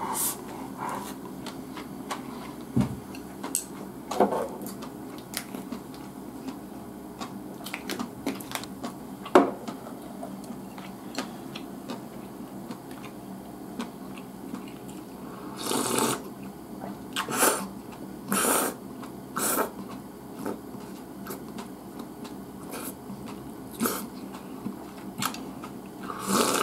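Close-miked eating sounds: chewing and small mouth clicks and smacks of a man eating rice with chopsticks, then a run of four slurps from a bowl of miso soup a little past the middle, and another slurp near the end.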